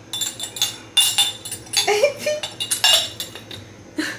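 A small glass honey jar, its glass lid and dipper clinking against it in a series of sharp knocks, several with a short glassy ring.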